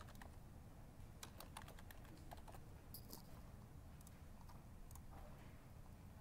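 Faint, irregular clicking of computer keyboard keys as a file name is typed, a scattered handful of keystrokes over a low steady hum.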